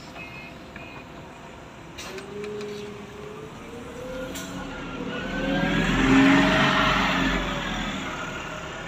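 Scania Citywide CN280UB CNG city bus pulling away from a stop. After a sharp click about two seconds in, its gas engine's note rises as it accelerates, grows loudest about six seconds in as the back of the bus passes, then fades as it drives off.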